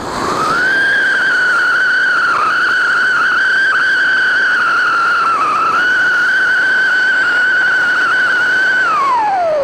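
Diwali 'siren' firecracker, a spark fountain (anar) with a built-in whistle, burning: a loud, steady high whistle over the hiss of the fountain. The whistle rises to pitch in the first second and glides down near the end as it dies away.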